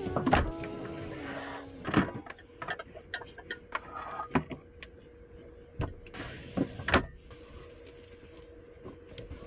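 Household handling noises: knocks, clicks and clatter of a bench-seat lid and items taken out of the storage box beneath it, with a brief fabric rustle about six seconds in. A faint steady hum runs underneath.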